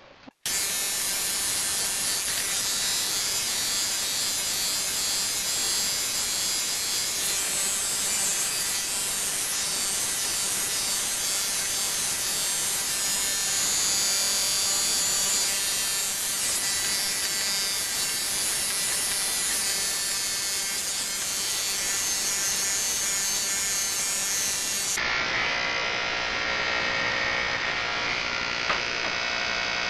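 Electric hair clippers switched on about half a second in and buzzing steadily while cutting hair.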